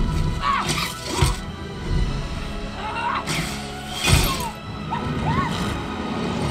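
Film soundtrack of an aerial battle played over a home-theater speaker system: music under two bursts of crashing and shattering. Among the crashes come several short creature cries that rise and fall in pitch.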